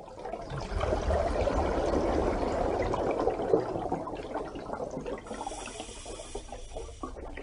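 Water noise, a dense churning splash-and-bubble sound, with a brighter hiss added for about two seconds near the end.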